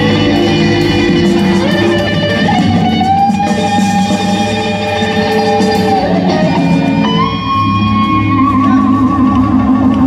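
Live rock band playing an instrumental passage on electric guitars over bass and drums, with long held high notes; the last one, coming in about seven seconds in, starts to waver near the end.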